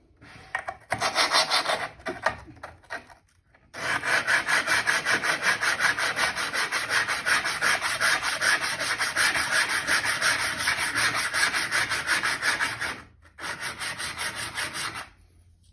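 A cast metal hand-plane lever cap scrubbed back and forth on 400-grit sandpaper, about four quick strokes a second, in several runs with the longest in the middle. It stops shortly before the end. This is lapping to flatten the cap's front edge.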